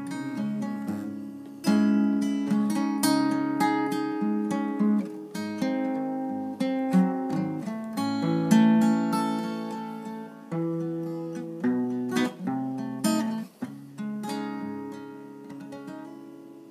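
Acoustic guitar playing the closing instrumental of a song, picked notes and chords, with a last chord left to ring and fade out near the end.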